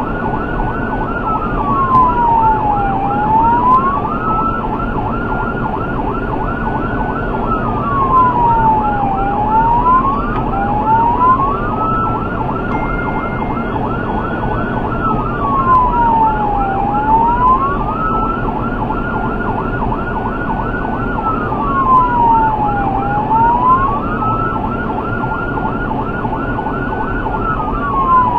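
Electronic emergency siren cycling in a slow wail: it climbs, holds high, then falls, about every six to seven seconds, with a faster warbling tone layered over it. Steady road and engine noise from a car at highway speed lies underneath.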